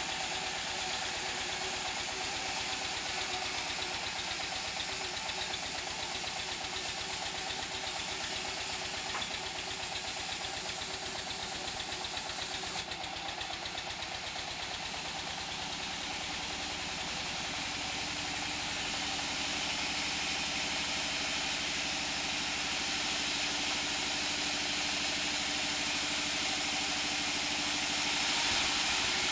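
Engine-driven band sawmill running, its blade sawing mango wood lengthwise into planks: a steady engine drone under the hiss of the saw in the cut. The sound shifts abruptly about halfway through, then grows gradually louder toward the end.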